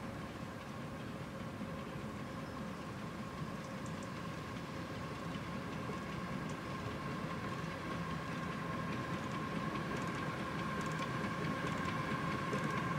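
A 7¼ inch gauge miniature railway locomotive and its passenger coaches running along the track, a steady rumble with a steady high whine that grows gradually louder as the train approaches.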